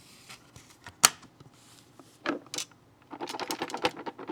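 Metal case of a Proxxon socket set being handled: a sharp click about a second in, two more clicks a little after two seconds, then a run of quick, light metallic clicks and rattles from about three seconds on.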